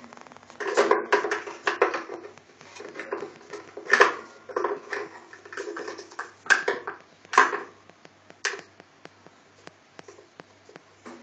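A peach-faced lovebird knocking a small plastic container about on a wooden cabinet top: a run of irregular clacks, rattles and knocks, with the sharpest hits about four and seven and a half seconds in. From about eight and a half seconds in, the knocking gives way to light, even ticks about twice a second.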